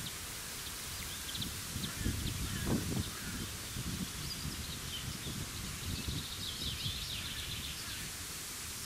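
Outdoor ambience: wind rumbling on the microphone and rustling leaves, with small birds chirping and a quick run of chirps about six to seven seconds in.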